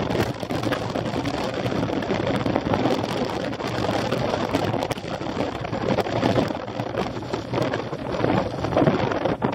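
Steady wind buffeting the microphone, an even rushing noise with a few faint ticks.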